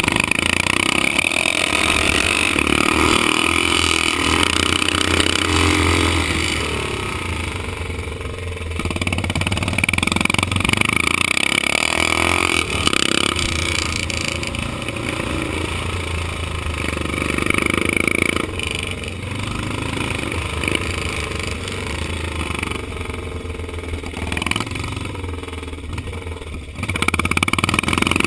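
Vintage motocross motorcycle engine at race pace, heard from a camera mounted on the bike, with wind rushing over the microphone. The engine pulls hard, eases off about eight seconds in and again shortly before the end, then picks up sharply.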